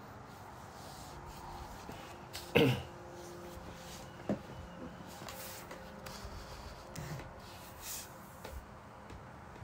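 Quiet room tone with a faint steady hum and a few light clicks. About two and a half seconds in there is one short sound that slides down in pitch.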